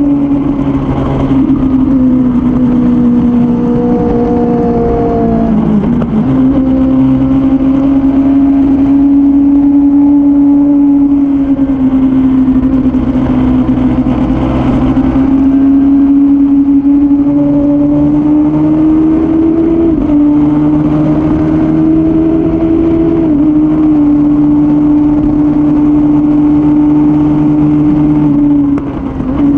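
Suzuki Bandit 600's inline four-cylinder engine pulling hard at high revs while the bike is ridden on track, its pitch rising and falling as it accelerates through bends. About six seconds in the note dips sharply and picks back up, a few sudden pitch drops follow later, and the throttle shuts briefly near the end.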